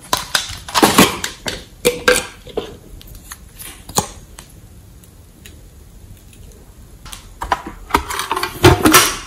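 Hard plastic cosmetic cases and lids being handled and opened: a run of sharp clicks and knocks just after the start, a single click about four seconds in, and another cluster of clicks near the end.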